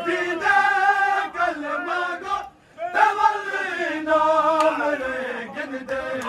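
Men chanting a noha, a Shia mourning lament, in long, wavering sung lines that break off briefly about two and a half seconds in.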